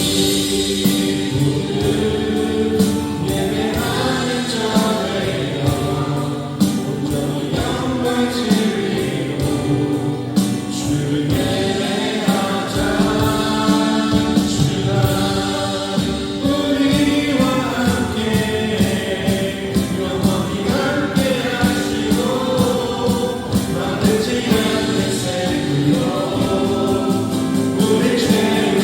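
Choir singing a gospel or worship song with instrumental accompaniment, steady and loud.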